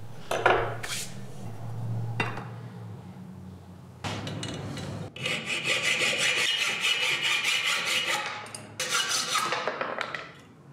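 Hand hacksaw cutting through a wrought iron bar clamped in a vise, a steady run of back-and-forth strokes from about four seconds in until near the end. Before the sawing, a few light clicks of metal being handled.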